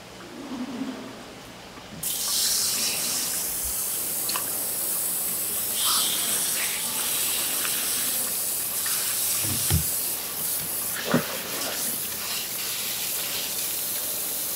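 Water running hard from a tap, turned on abruptly about two seconds in and shut off at the end, with two short knocks partway through.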